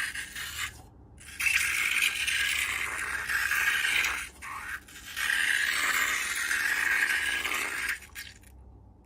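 Slime-making handling noise: scraping and rattling of material in a few long stretches with short pauses between.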